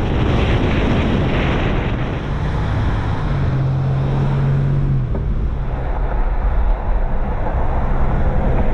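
Moving car: steady wind rush and road rumble, with wind buffeting the microphone.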